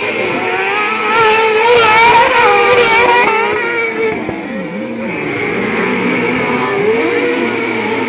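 Kartcross buggies' motorcycle-type engines running hard on the track, revving up and down so the pitch keeps rising and falling. It is loudest in the first three seconds, eases off about four seconds in, then builds again.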